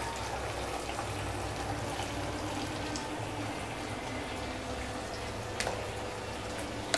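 Onion, garlic and green chilli frying with tomato sauce and chutneys in a steel kadhai: a steady, soft sizzle, with a couple of faint clicks.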